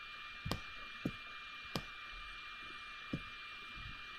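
Four short, sharp computer mouse clicks, spaced irregularly over about three seconds, over a steady electronic hiss with a faint high whine.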